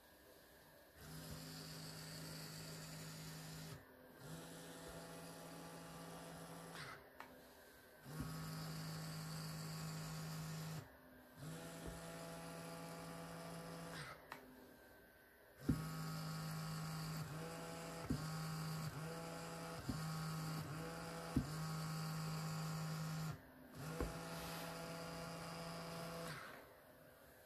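Electric exhaust cutout valve's small electric motor whining as it drives the butterfly plate open and closed, in runs of two to three seconds each, about six times, with a light click as each run starts. Midway it runs in a quick string of short stop-start pulses as the valve follows the accelerator pedal being pressed and eased.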